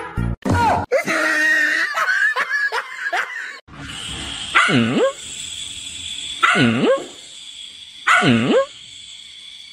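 A dog makes short whining and grumbling sounds. Then a puppy gives three drawn-out barks about every two seconds, each dipping and rising in pitch, at a rat in front of it.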